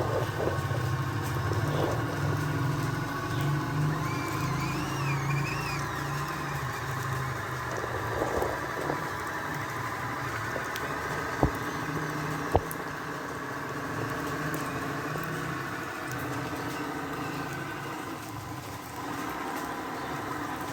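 Radio-controlled toy truck's small electric motor and gears running with a steady hum, with a wavering higher whine for a couple of seconds early on and two sharp clicks about halfway through.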